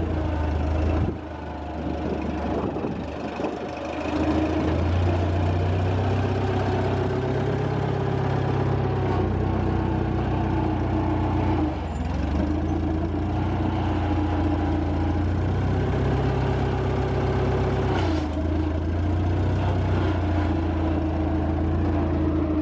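Vehicle engine running steadily throughout, its pitch stepping up and down a few times as the throttle changes.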